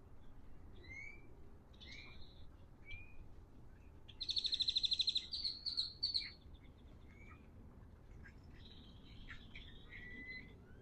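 Wild birds calling: a few short rising whistles, then a loud, rapid rattling trill about four seconds in that lasts about a second, followed by scattered chips and chatter.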